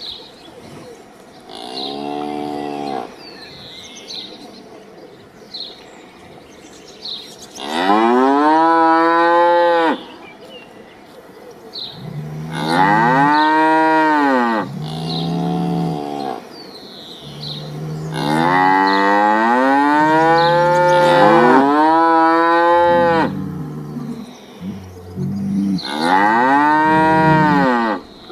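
Cattle mooing: about six long moos, each rising and then falling in pitch. One is fainter near the start, and two overlap about two-thirds of the way through. Faint high chirps are heard between the moos.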